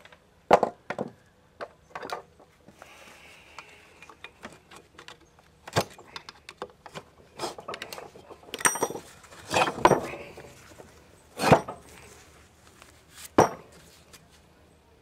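Hand tools and metal outboard parts clinking and knocking as a Johnson 15 hp outboard's lower unit is worked on with a screwdriver. The clinks and knocks come at irregular times, one with a brief metallic ring and two louder knocks near the end.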